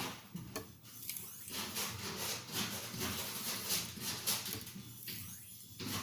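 Kitchen knife blade stroked back and forth on an oiled translucent Arkansas whetstone: a rasping, scraping sound in repeated short strokes as the finishing stone removes metal.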